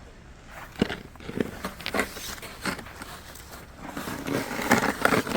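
Irregular crunches and scrapes in deep snow, coming in uneven bursts that cluster near the end.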